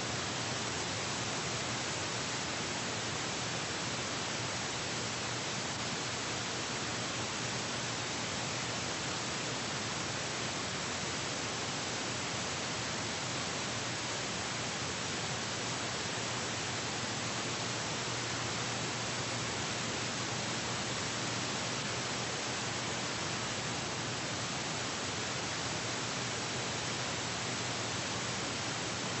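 Steady, even hiss and nothing else: the noise floor of a film transfer that has no soundtrack.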